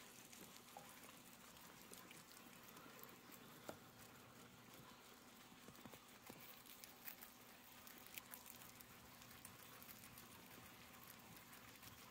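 Guinea pigs chewing fresh leafy greens and hay: faint, irregular crunching and rustling clicks, with a few sharper crunches.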